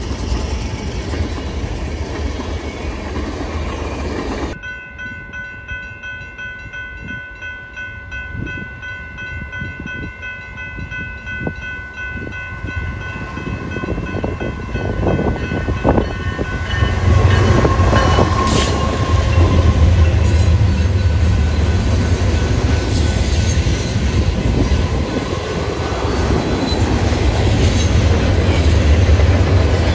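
Freight tank cars rolling past, then, after a cut, an approaching BNSF freight train sounding a long air-horn chord. About 17 s in, its diesel locomotives pass with a loud, low engine rumble, followed by the cars rolling by with rhythmic wheel clacks over the rail joints.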